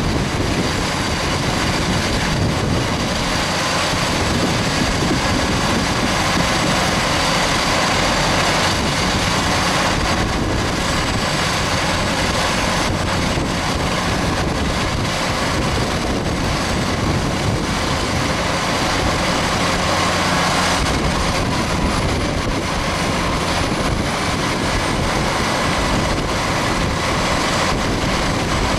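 Tractor engine running while a 36-ton beet cart's conveyor runs, with sugar beets tumbling off its top end into a truck trailer. The result is a steady, dense mechanical rumble.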